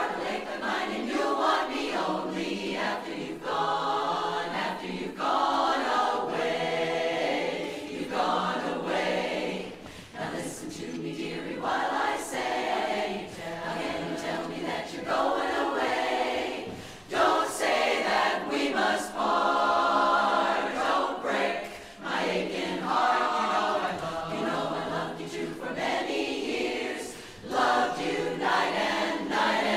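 Women's barbershop chorus singing a cappella in close harmony, in phrases with brief dips between them.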